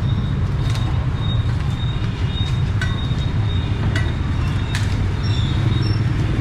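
Steady low background rumble with a thin high tone over it, broken by a few light clicks.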